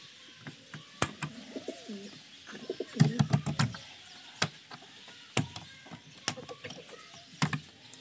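Domestic pigeons cooing, loudest about three seconds in, over repeated sharp clicks and knocks from a metal hasp latch and wooden door being handled.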